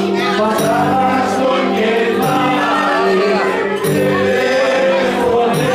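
Live Greek folk music played loud, with voices singing together over a steady held low note.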